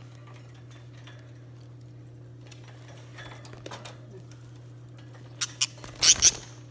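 Rattling and scuffling in a parakeet's wire cage as a hand reaches in for the bird: a few faint clicks, then a short loud flurry of sharp rattles about five and a half to six and a half seconds in, over a steady low hum.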